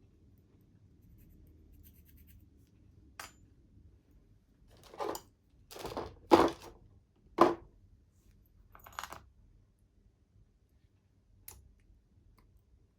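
Small metal model-locomotive parts being handled and set down on a work surface: scattered clinks and knocks, a few of them ringing briefly, the loudest bunched together in the middle.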